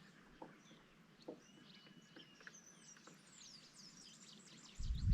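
Faint birdsong from the riverbank: a held whistle and several quick downward-sweeping chirps over a soft outdoor background, with a couple of light knocks early on. Near the end a louder low rumble starts.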